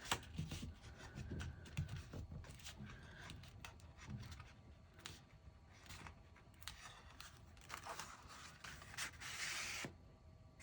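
Paper and card rubbing and rustling as a glued tab is pressed and smoothed down by hand, with scattered light taps, and a longer rubbing hiss near the end.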